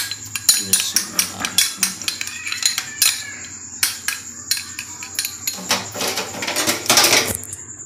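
Metal spoon stirring chili sauce and chili flakes in a small glass bowl, clinking and scraping against the glass in quick, uneven strokes, thickest about six to seven seconds in.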